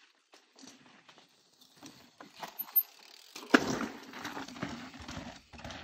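Gravel bike's rear freehub ratcheting in quick ticks as it coasts, faint at first. A sharp knock comes about three and a half seconds in, followed by rougher rattling as the bike rolls over rock.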